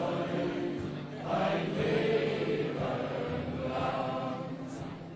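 Group of men singing together into microphones, a choir-like unison song with music, easing off a little near the end.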